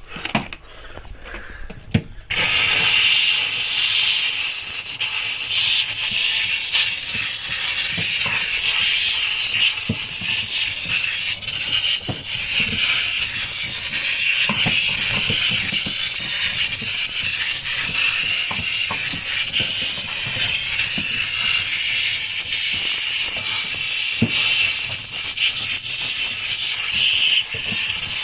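Handheld steam cleaner switching on about two seconds in and jetting steam in a steady hiss onto the freezer ice to melt it.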